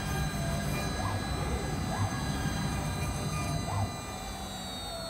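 Twin spindles of a multi-head CNC router running with a steady high whine as they engrave a sheet, with three short rising-and-falling tones about a second apart. The sound drops a little near the end.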